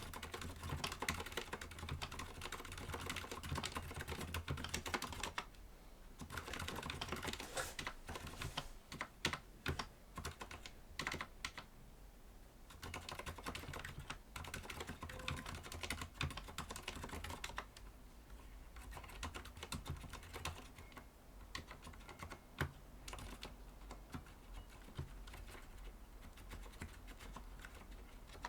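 Continuous typing on a Thinkway Toche-T mechanical keyboard with Cherry MX Silent Red (low-noise linear) switches: a dense run of soft keystrokes with two short pauses, the typing growing lighter in the second half.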